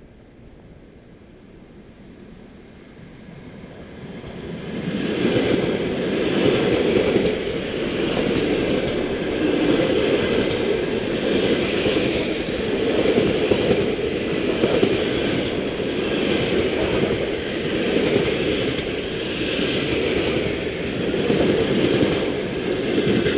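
ED4M electric multiple unit approaching and then running past close by. It grows louder over the first few seconds, then turns into a steady rumble of wheels on rail that swells evenly every second or two as the cars go by.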